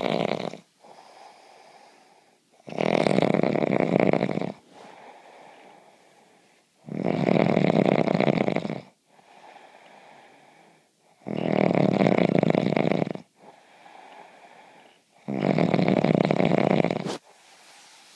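A man snoring heavily: four long, loud snores of about two seconds each, coming roughly every four seconds, with quieter breaths between them.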